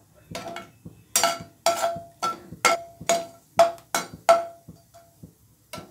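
A perforated stainless-steel ladle tapping and scraping against a non-stick kadai while stirring whole spices frying in oil. Sharp metallic taps with a short ring, about two a second, thinning out after about four and a half seconds.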